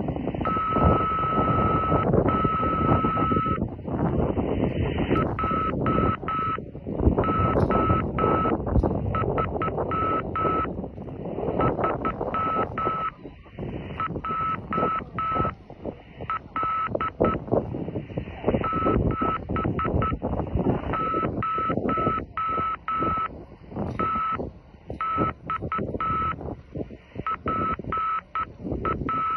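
Amateur radio transceiver receiving in upper-sideband mode: a band of receiver hiss with a thin, steady beat-note whistle that breaks off and returns several times. The whistle is the weak carrier from the other station on the millimetre-wave link, heard through the transceiver acting as the transverter's receiver.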